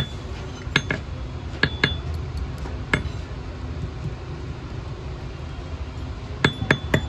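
Hammer tapping a small iron ring on the pointed horn of an anvil, shaping it to size. The light metal-on-metal taps each ring briefly: a few spaced taps, a pause of about three seconds, then four quick taps near the end.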